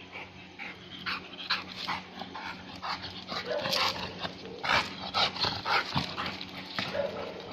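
Pit bull making a string of short yips and barks during rough play. The sounds come thickest and loudest about halfway through.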